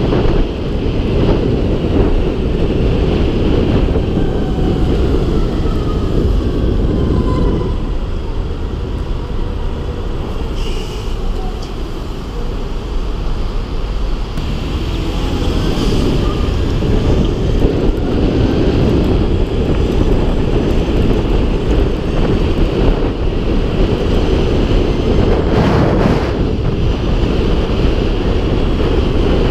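Wind buffeting the action camera's microphone while riding a near-silent electric motorcycle, a steady low rumble that eases for a few seconds in the middle as the bike slows in traffic, then builds again.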